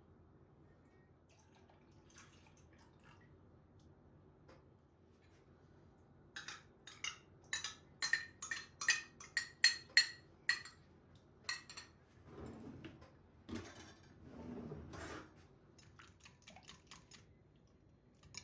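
Kitchenware clinking: a metal utensil strikes a dish about a dozen times in a quick ringing run, then scrapes more softly for a few seconds, with a few light taps near the end.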